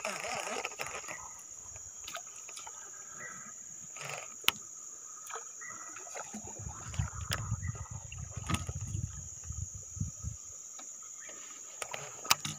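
Steady high-pitched insect drone, with a few sharp clicks and a low rumbling for a few seconds in the middle.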